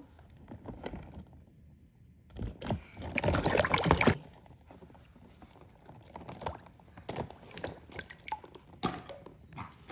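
Water splashing and sloshing in a tub as toy sea animals are moved through it by hand, loudest for about two seconds near the middle, then lighter splashes and drips.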